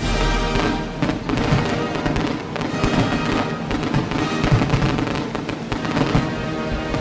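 Fireworks going off in a rapid series of bangs and crackles, mixed with music.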